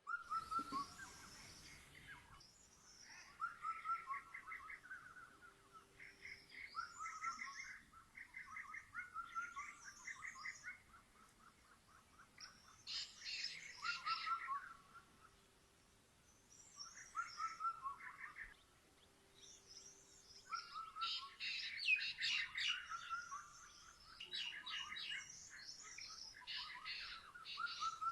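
Several birds singing and chirping: one short trilled phrase recurs every few seconds, with higher, quicker chirps from other birds overlapping it, busiest a little past the middle.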